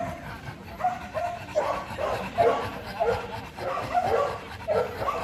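Dog barking over and over in a run of short barks, two or three a second.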